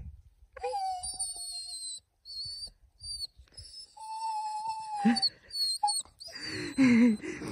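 A dog whining in thin, high, wavering tones, then in one longer steady whine about four seconds in. A louder, lower vocal sound follows near the end.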